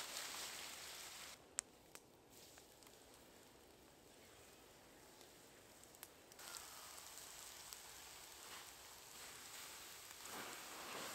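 Near silence: faint outdoor hiss with a few sharp light clicks, the loudest about a second and a half in.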